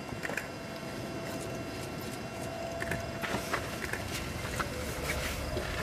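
Wind near a tornado heard from inside a car: a steady rush with scattered light ticks, and a low rumble building about four seconds in.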